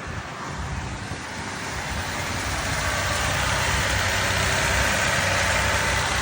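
A 2006 Mercury Milan's engine running after finally starting. A rushing noise grows louder over the first three seconds or so, then holds steady.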